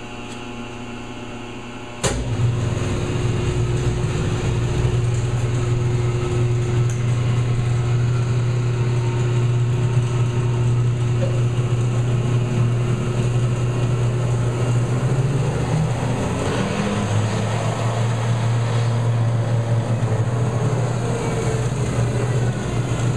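Powermatic model 87 20-inch variable-drive vertical band saw running with no load: a steady motor and drive hum. A sharp click about two seconds in, after which it runs louder, and the hum wavers and shifts about two-thirds of the way through.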